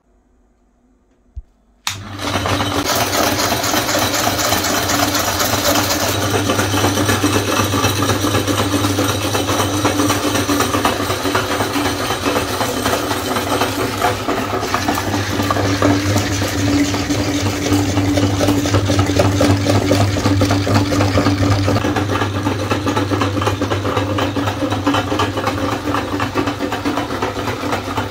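Belt-driven electric meat grinder switching on about two seconds in and running steadily with a low hum over dense rattling, its auger grinding ice cream bars and their wooden sticks fed into the hopper.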